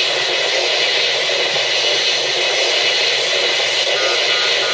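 Proton-pack firing sound effect from an Arduino sound board, played through a small speaker while the fire button is held: a steady hissing rush. About four seconds in, a short beep starts repeating about three times a second.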